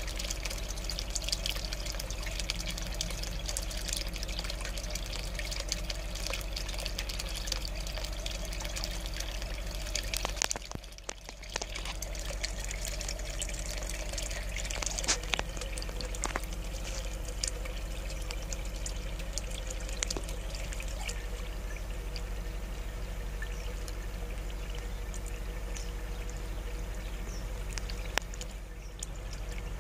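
Water trickling and pouring steadily into a small garden pond, with a steady low hum underneath. The sound drops away briefly about eleven seconds in and again near the end.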